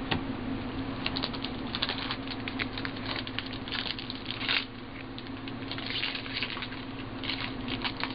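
Foil trading-card pack wrappers crinkling and crackling in quick bursts as packs are handled and pulled from the box, loudest about four and a half seconds in. A steady low hum runs underneath.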